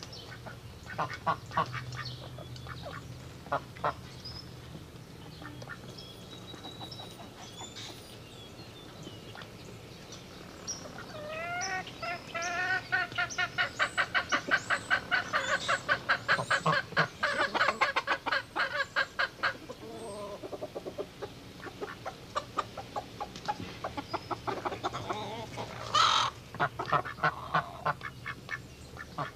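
Barnyard fowl calling. Scattered short calls give way, about eleven seconds in, to a long run of quick repeated calls, several a second, that lasts about eight seconds. A sharp, louder call comes near the end, followed by more short calls.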